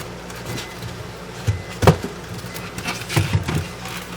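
Scattered hard plastic knocks and clicks, a few sharp ones, from a refrigerator's plastic freezer cover being pushed and worked against its housing while someone tries to fit it back into place one-handed, over a steady low hum.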